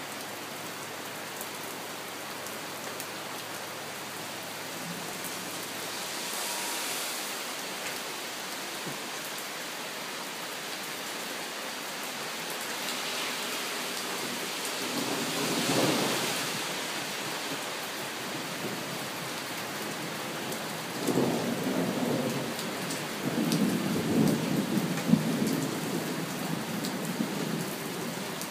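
Steady rain during a thunderstorm, with thunder: a rumble that swells to a peak about halfway through, then a louder, rolling rumble of thunder from about two-thirds of the way in to near the end.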